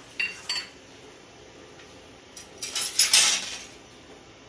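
Steel spoon clinking twice against the metal pressure cooker pot with a short ring. Then a louder run of clanking and scraping as it stirs in the pot, loudest about three seconds in.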